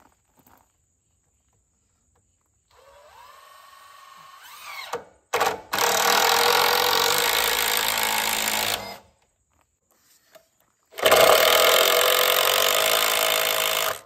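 Cordless drill driving screws into wood: a softer run with a rising whine, then two loud runs of about three seconds each, a couple of seconds apart.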